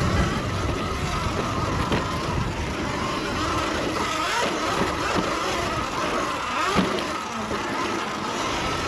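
79 Bike Falcon M electric dirt bike being ridden, its 72 V Sotion hub-drive motor giving a steady whine that wavers with speed over a low rushing noise. There is no rattle from the chassis, now that the bike has been bolt-checked and tightened.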